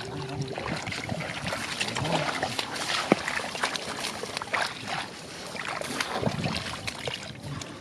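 Irregular splashing and sloshing in shallow muddy water, with scattered short slaps and clicks, as fish are caught by hand in the mud.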